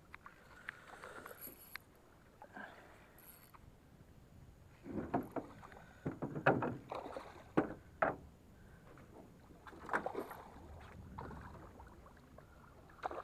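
A hooked pacu splashing at the water's surface beside a small boat as it is played on the line: a cluster of sharp, irregular splashes about five seconds in, and another splash near ten seconds.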